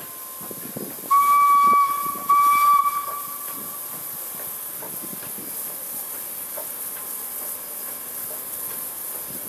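Steam whistle of a 1907 SJ E2 steam locomotive sounding two short blasts on one pitch, the first slightly longer, about a second in, over the steady hiss of the passing engine.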